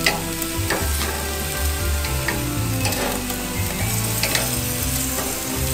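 Strips of ostrich meat and chicken sizzling steadily on a hot gas grill's grate. Metal tongs click a few times against the grate and meat as the pieces are turned over.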